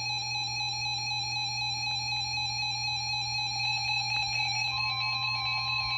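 A steady electronic tone with a buzzy edge sounds over the weather radio receiver's audio. About five seconds in, a second, slightly higher steady tone joins it: the 1050 Hz warning alarm tone that NOAA Weather Radio sends ahead of a watch or warning message.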